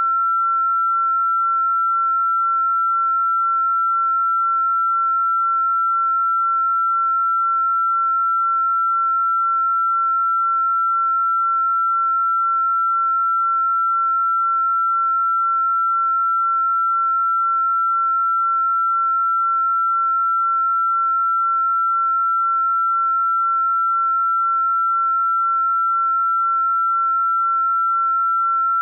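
A single steady pure sine tone a little above 1 kHz, held at one unchanging pitch and level. It is a generated sound-therapy 'healing frequency' tone.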